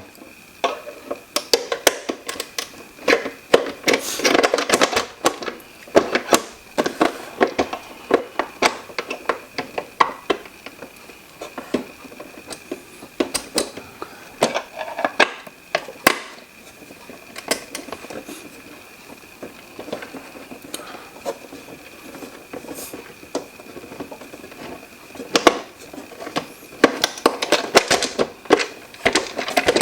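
Irregular clicks, taps and knocks of hard plastic humidifier parts being handled and unscrewed during disassembly, with a faint steady high tone underneath.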